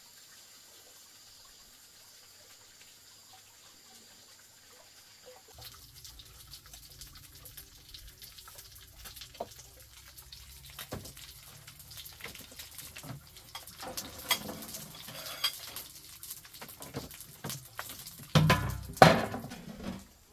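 Quiet at first, then from about five seconds in, water sloshing and splashing with scattered knocks and clinks, as of hands working with water and pots or dishes; the loudest knocks come about two-thirds through and near the end.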